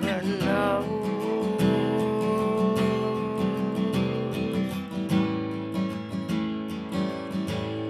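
Acoustic guitar strummed in a steady rhythm in an instrumental passage of a song. A long held note sits over the strumming through about the first half.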